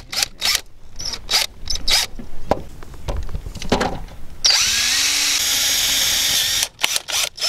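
Cordless drill driving self-tapping sheet-metal screws through a roof vent's flange into a van's sheet-metal roof. A few short bursts come first, then one steady run of about two seconds with a rising whine, then short stop-start bursts near the end.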